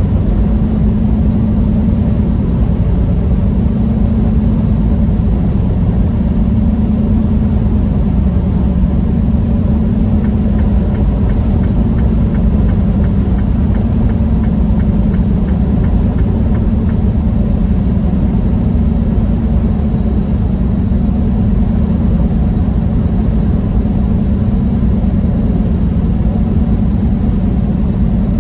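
Truck engine and road noise heard from inside the cab while driving: a steady low drone whose hum wavers slightly in pitch.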